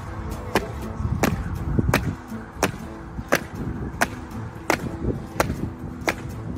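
Boot heels of a military honour guard marching in step on stone paving, one sharp strike about every 0.7 seconds.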